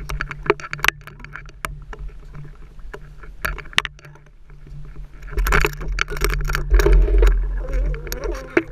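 Boat engine running as a steady low hum, heard through the GoPro's housing, with many sharp knocks and clicks as the camera rig is handled on deck. From about halfway, a loud rushing and splashing as the rig goes over the side into the sea.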